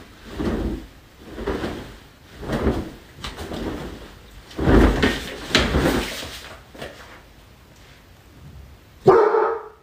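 A large cloth quilt flapped and swished up and down, about one swoosh a second, dying away after about seven seconds. A short voice-like sound comes near the end.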